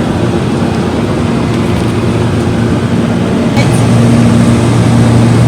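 Aircraft engine drone heard inside the cabin: a steady low hum over a rushing noise, growing louder about three and a half seconds in.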